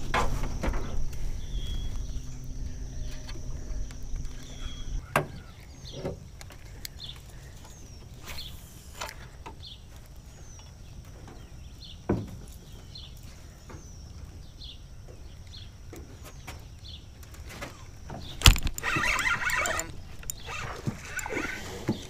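Handling noise from fishing in a small aluminium jon boat: scattered knocks and clicks, with a low rumble in the first few seconds and faint high chirps. Near the end comes one loud sharp knock, followed by a few seconds of rough, scrambling noise.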